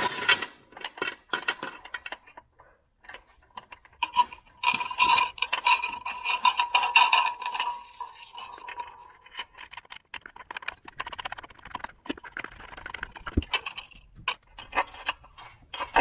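A thin wire being pulled and worked through a bolt hole in a car's sheet-metal firewall by hand: scattered small clicks and metal taps, with a scraping rub a few seconds in.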